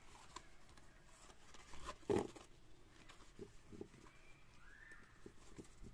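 Quiet room with faint taps and rustles of tarot cards being handled, and one slightly louder soft brush about two seconds in. Near the end a faint tone rises and falls.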